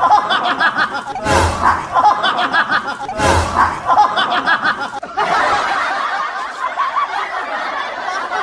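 Loud laughter, coming in repeated bursts about every two seconds, then running on without a break from about five seconds in.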